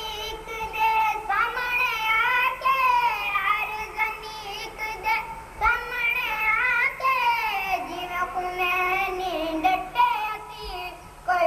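A boy singing verses in long, drawn-out phrases whose pitch rises, falls and wavers.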